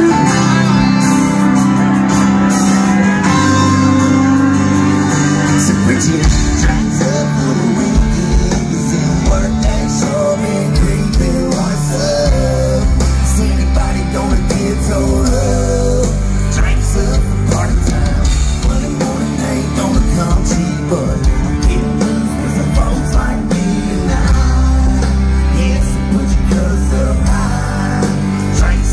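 A live band playing a drinking song through a loud PA, with amplified guitar, drums and a sung lead vocal. A heavy bass and drum beat comes in about six seconds in.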